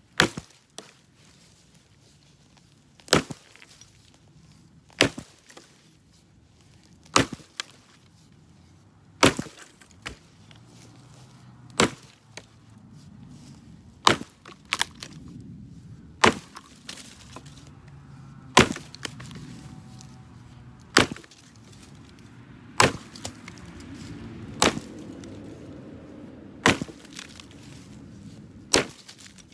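A 1945 Spiller axe chopping into a large white pine branch: single sharp blows of the axe bit into the wood, about one every two seconds, around fifteen in all.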